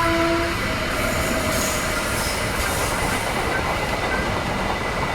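Train wheels running on the rails with a steady rumble and a faint, thin, steady high squeal. A held pitched tone fades out about half a second in.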